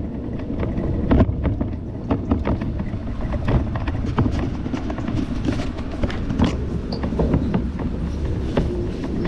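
Bicycle ridden over a rough path: a steady low rumble with wind on the microphone, and frequent irregular rattling clicks and knocks from the bike and mount over bumps.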